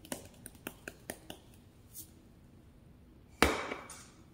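Seasoning shaker can shaken over a glass baking dish: a quick run of light clicks, about five a second, for the first second and a half. About three and a half seconds in, a single loud knock as the can is set down on the stone counter.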